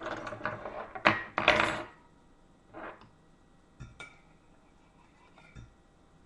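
A metal fork clattering and clinking against a ceramic bowl and the table, with two sharp loud knocks about a second in, then a few lighter clinks and taps.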